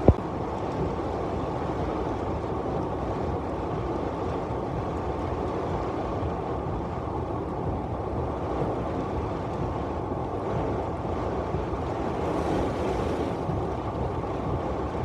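Heavy rain on a moving car, heard from inside the cabin, with tyres hissing on the wet road: a steady, even wash of noise. There is a single click at the very start.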